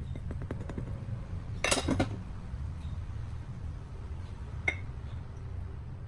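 Dry ingredients are tipped and spooned into a glass mixing bowl. A run of light taps comes first, then a loud clatter about two seconds in as the pouring bowl knocks against the glass. Near five seconds the spoon gives a single ringing clink against the glass, all over a low steady hum.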